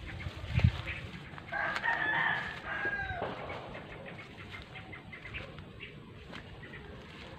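A rooster crowing once, starting about a second and a half in and lasting about two seconds, its last note falling in pitch. A low footstep thump comes just before it.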